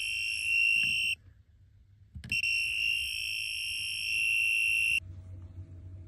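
Electrician's voltage tester sounding a steady high-pitched beep while its probe touches a live terminal, showing 240 V present. The beep breaks off for about a second, starts again with a click as the probe meets the terminal, and cuts off suddenly about five seconds in.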